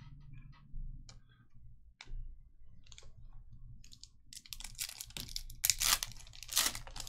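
A few light clicks of trading cards being handled, then a foil trading-card pack torn open and crinkled, the tearing and crackling loudest near the end.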